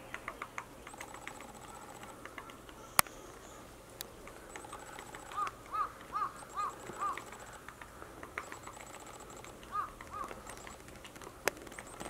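Japanese pygmy woodpecker tapping on a tree trunk in short, irregular runs of light knocks, with one sharp click about three seconds in. Midway another bird calls five times in quick succession and twice more near the end, over a thin, high trill that comes and goes.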